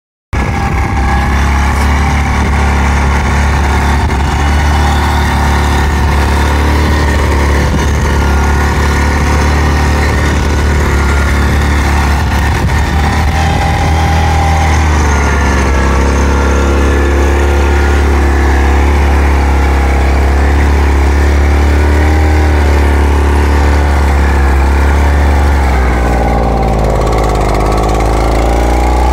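Engine of a walk-behind two-wheel tractor (motocultor) running steadily under load as it pulls a plough through the soil. Its pitch dips and recovers about halfway through and again near the end as the load changes.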